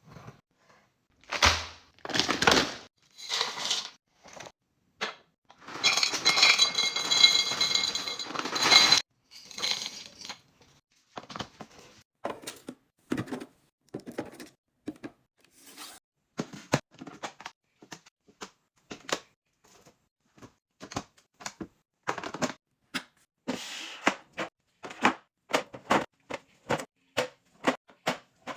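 Household items being handled and put away in a fridge. A few seconds of loud crinkling and rustling of packaging comes a few seconds in, followed by a long run of short taps, clicks and knocks as containers are set down.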